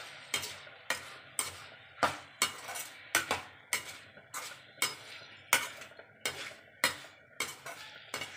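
Perforated steel skimmer spoon scraping and knocking against a stainless steel kadai about twice a second, unevenly, as tomatoes are stirred into frying onion and ginger-garlic paste. A light sizzle of the frying runs underneath.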